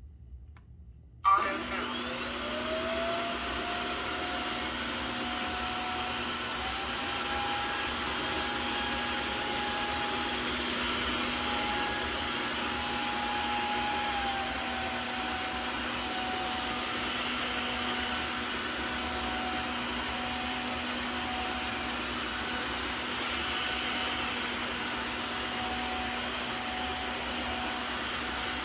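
Tineco Floor One F3 wet-dry vacuum cleaner switching on with a sudden start about a second in, its motor whine rising over a couple of seconds and then running steadily. The pitch steps up slightly about six seconds in and drops back a little around fourteen seconds.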